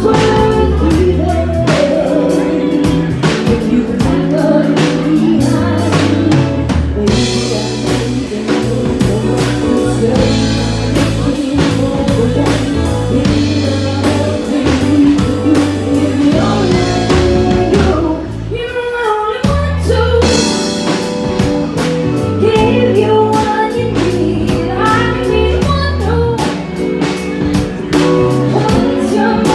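Band playing a song at a sound check: a singer over drum kit and guitar. The music thins out briefly about two-thirds of the way through, then comes back in full.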